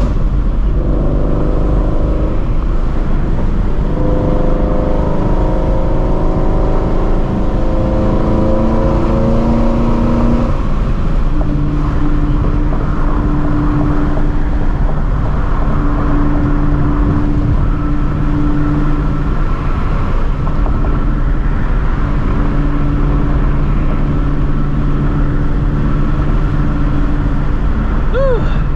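Straight-piped 2016 Ford Mustang Shelby GT350's 5.2-litre flat-plane-crank V8, fitted with long-tube headers, running steadily at highway cruise. About ten seconds in the engine note drops to a lower pitch and holds there.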